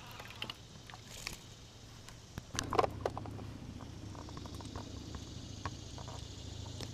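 Scattered light knocks and clicks of gear being handled in a drift boat, with the sharpest cluster about three seconds in, over a low steady rumble that sets in a little before.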